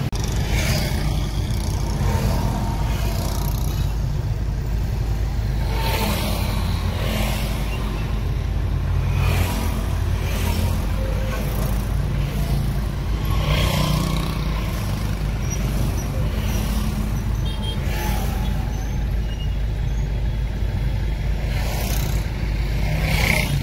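Congested street traffic: a steady low rumble of car and motorcycle engines, with several brief louder swells of noise from passing or revving vehicles.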